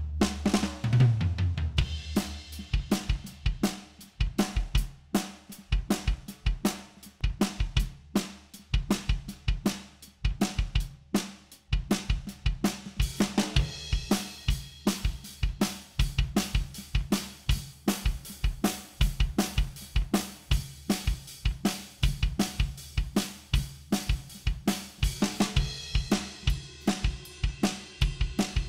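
Recorded acoustic drum kit playing a steady groove of kick, snare and hi-hat, with cymbals swelling about halfway through and again near the end. The drum stems are played back through the VSM-4 harmonic-distortion plugin, with its triode and pentode saturation stages.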